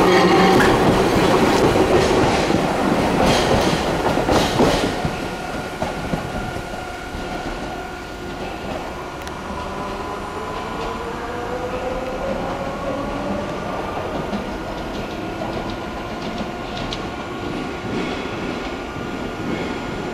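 Hiroshima Electric Railway 3100-series articulated tram pulling away. Its traction motors whine, rising in pitch, and its wheels clack over the rail joints as it passes close by. It then turns fainter as it runs off along the track, the motors whining up again and the wheels clicking over pointwork near the end.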